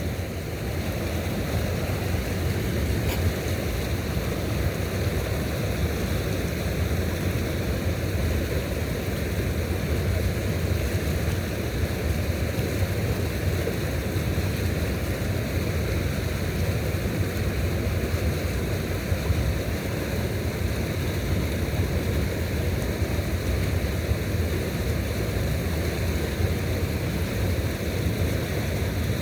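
Steady rushing noise of wind and moving water, strongest in the low end, with no distinct events.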